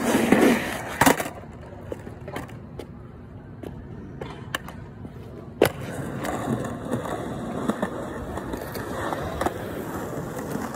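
Skateboard on concrete: wheels rolling, with a sharp clack about a second in and another loud crack a little past the middle, then the board rolling again toward the end.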